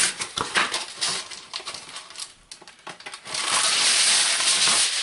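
Heavy-duty aluminium foil being crinkled and crushed together by hand around a block of wood: sharp crackles, a short lull a little past halfway, then a denser stretch of crinkling.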